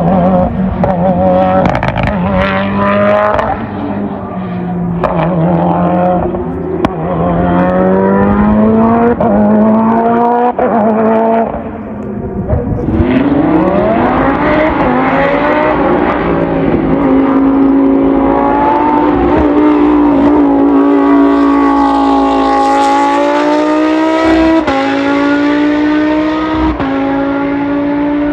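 Race car engine accelerating hard, its pitch rising and stepping back down through several gear changes. The revs dip about 11–12 seconds in, then climb steeply again and hold high.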